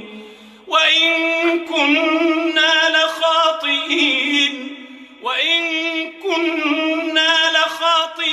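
A male reciter chanting Quran verses in a melodic tajweed style: long, held vowels with ornamented pitch turns. He draws a breath about a second in and again near the middle.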